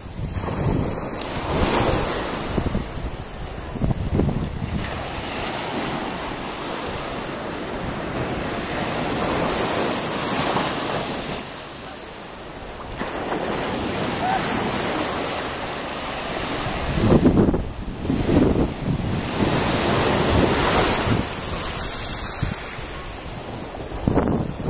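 Small waves breaking and washing up a sandy shore, the surf swelling and fading every few seconds. Wind buffets the microphone in gusts, rumbling most heavily about two-thirds of the way through.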